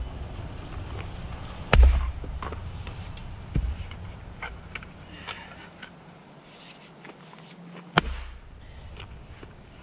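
A splitting axe striking a round of seasoned firewood on a chopping block, three times: a loud hit about two seconds in, a lighter one a couple of seconds later, and a sharp hit about eight seconds in.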